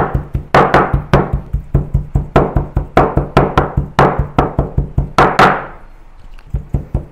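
Chinese cleaver chopping diced pork on a bamboo cutting board, mincing it with rapid knocks of about four or five a second. Background music plays underneath and stops about three-quarters of the way through, after which the chopping is heard alone.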